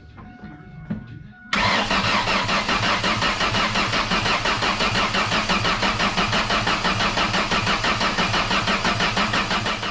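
Rebuilt 2001 Ford Focus engine cranking over on the starter motor with an even, rapid pulsing for about eight seconds without catching, then stopping abruptly. This is the first start attempt after the rebuild.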